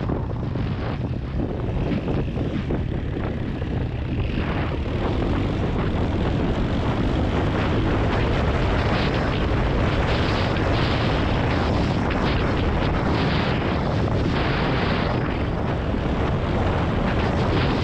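Dirt bike engine running steadily under way, heard from a helmet-mounted camera and mixed with wind rumble on the microphone.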